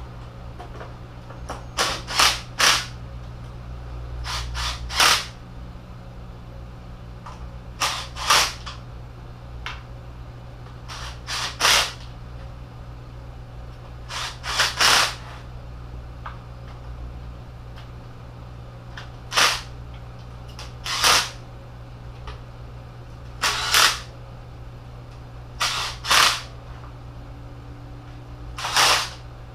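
Small cordless hand impact driving oil pan bolts, in short bursts of under a second, often two or three close together, every few seconds. The bolts are only run down snug, not to full torque. A steady low hum runs underneath.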